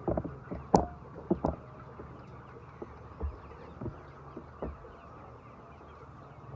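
Chickens clucking now and then over a steady low hum, with a sharp click a little under a second in.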